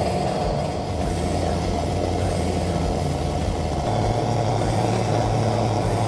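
Pressurized kerosene lantern's preheater burning with a quite loud, steady rushing hiss, the lantern being warmed up before it is lit.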